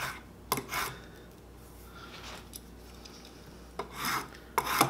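Spokeshave cutting shavings from a hickory blank. There are three short scraping strokes in the first second, a pause, then about four quicker strokes near the end.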